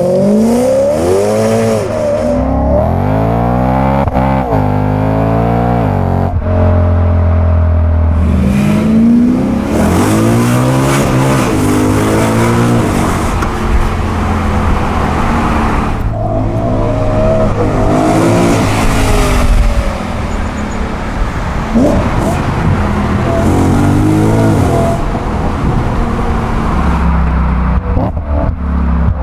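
BMW M3 E92 GTS 4.4-litre V8 through an Akrapovič exhaust, revving up hard several times, each climb in pitch broken off and falling away as it shifts or lifts, with a few stretches of steady running between.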